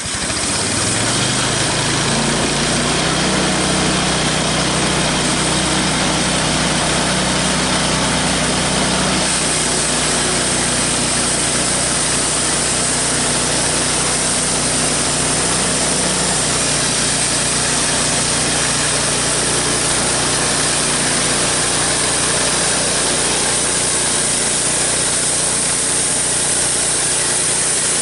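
Homemade band sawmill's engine speeds up at the start, then runs steadily as the band blade saws along a log. A brighter, hissier sawing sound joins about nine seconds in and carries on.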